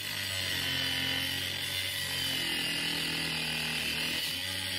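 Small Ryobi cut-off grinder running steadily, its abrasive wheel cutting through a steel threaded rod with a steady high whine.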